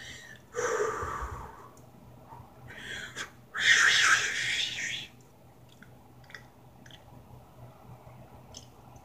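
A man's heavy breathing: a breathy sigh about half a second in, then a louder, longer exhale blown out through the mouth from about three and a half seconds in. Both are audible breaths rather than speech.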